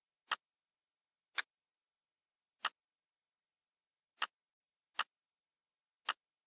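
Computer mouse clicking: six short, sharp single clicks at uneven intervals, with dead silence between them.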